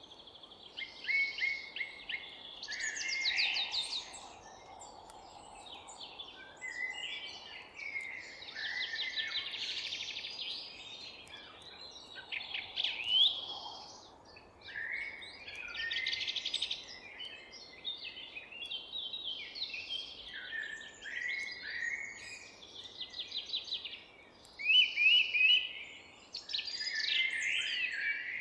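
Forest songbirds singing and chirping over one another, a dawn-chorus mix of short phrases, quick trills and rapid repeated chirps, over a faint steady background hiss.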